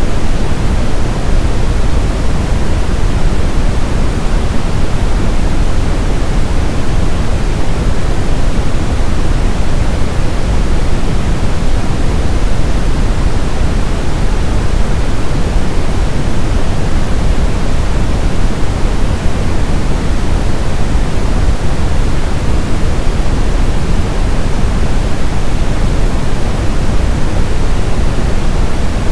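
Brown noise: a steady, loud, unchanging hiss-rumble whose energy is heaviest in the low end and falls off toward the highs, with no events or changes.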